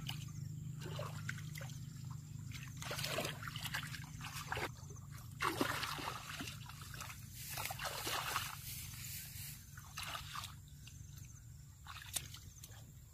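Water sloshing and splashing in irregular bursts, as when something is stirred or pulled through shallow water.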